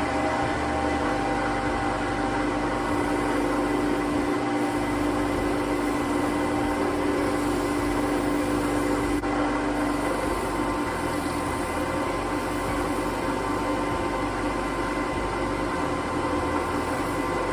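Wood lathe running: a steady motor hum and whir, with a low humming tone that fades about ten seconds in.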